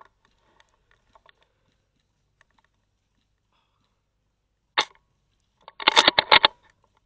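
Airsoft replica firing: a single sharp shot nearly five seconds in, then a rapid burst of about seven or eight shots about a second later.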